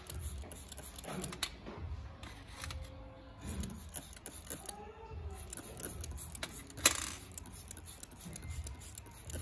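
Short squirts from a trigger spray bottle of cleaning liquid sprayed onto watch parts in a stainless steel tray, the loudest about seven seconds in, with light clicks of metal tweezers against the parts and tray.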